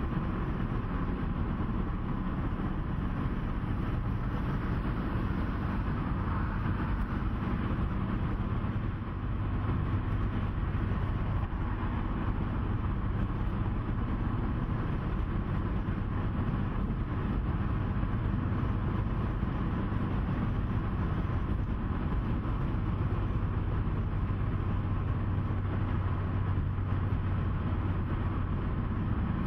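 Steady engine drone and road rumble heard inside a vehicle travelling at highway speed, with a constant low hum.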